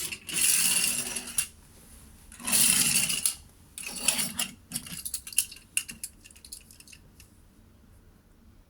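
Handling noise from a plastic toy and its packaging: three rustling, scraping bursts, then scattered light plastic clicks and knocks that die away.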